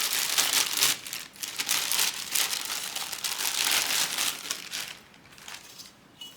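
Wrapping around a CPU cooler crinkling and rustling as it is pulled off by hand, dying down about five seconds in.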